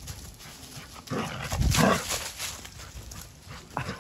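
A small dog making excited vocal sounds during play. There is a cluster of them about one to two seconds in and a short one near the end.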